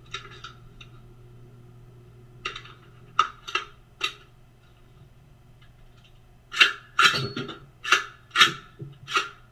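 AR-15-style rifle being handled, its metal and polymer parts giving sharp clicks and clacks: a few scattered strikes, then a quicker run of them near the end, over a steady low hum.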